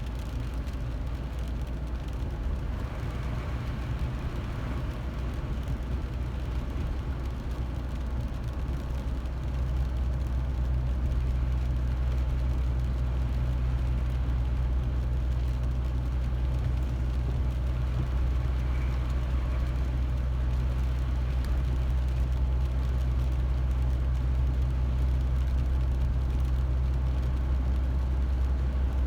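A car driving, with the steady low rumble of engine and tyres heard inside the cabin; it grows louder about ten seconds in and then holds steady.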